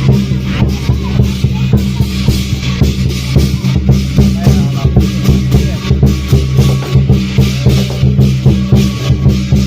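Loud music driven by a fast, steady drum beat of about three strokes a second over a sustained low drone.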